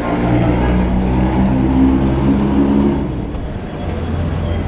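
Road traffic with a large vehicle's engine running: a steady low drone that is strongest for about three seconds, then fades to a lower hum.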